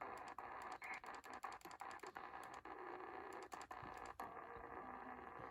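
Computer keyboard keys clicking in an irregular run of taps that stops about four seconds in, over a faint steady hiss.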